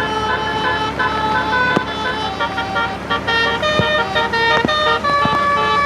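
Bus telolet horn (a basuri-type musical air horn) playing a melody: several tones sound together and step from note to note every fraction of a second, with short breaks between phrases.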